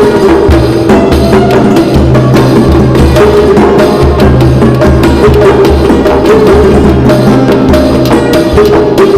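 Background music with busy hand-drum percussion over sustained low tones.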